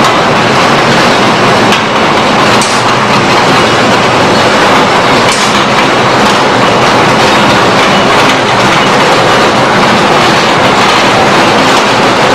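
Pneumatic chips packing machine running: a loud, steady mechanical clatter from its bucket conveyor and chain drive, with a sharp click every few seconds.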